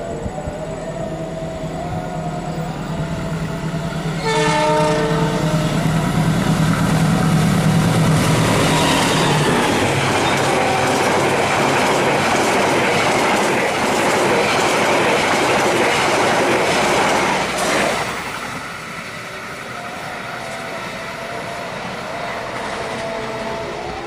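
Diesel-hauled passenger train approaching at speed, its locomotive engine running with a low hum, and a long horn blast starting about four seconds in. The carriages then rush past with a steady rattling clatter of wheels on the rails, which drops away sharply a little before the end.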